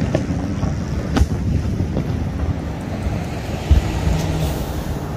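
Fireworks going off at a distance, a steady rumble of bursts mixed with wind on the microphone, with a sharp crack about a second in. A low thump comes just before the phone swings away.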